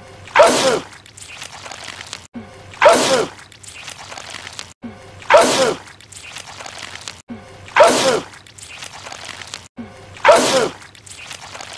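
A cartoon character's sneeze repeated five times, about two and a half seconds apart, each one identical. Between the loud sneezes comes a quieter wet, gooey sound.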